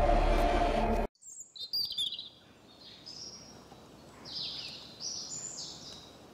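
Loud intro music cuts off suddenly about a second in. Then wild birds sing in short, high chirping phrases, repeated every half second or so over faint outdoor background noise.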